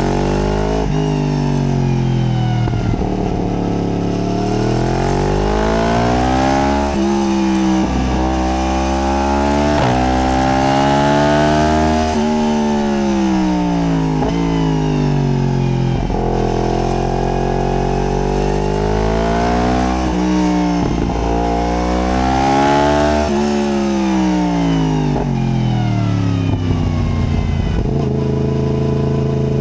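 Yamaha MT-10's crossplane inline-four engine pulling and easing off over and over. The revs climb and fall repeatedly, with brief breaks where the gears change, then hold low and steady near the end.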